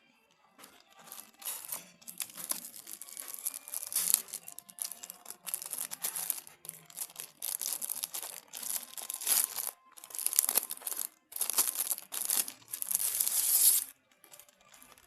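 Material, such as packaging, being torn and crinkled in irregular hissy bursts. The bursts grow longer and denser and stop abruptly about a second before the end.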